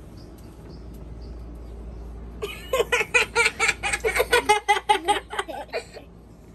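Small plastic trigger spray bottle squirted rapidly over and over, about five squirts a second, for roughly three and a half seconds from about two and a half seconds in. Each squirt gives a squeaky click and a short hiss of mist.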